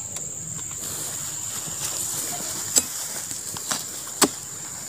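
A spiked metal pole (tojok) jabbed into an oil palm fresh fruit bunch: three sharp knocks in the second half, the last the loudest, over a steady high-pitched insect buzz.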